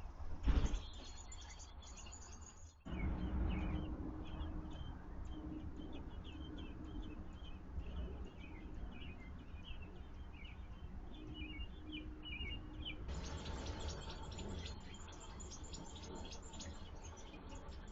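Birds chirping: many short, high chirps over a steady low rumble. The background changes abruptly about 3 seconds in and again about 13 seconds in.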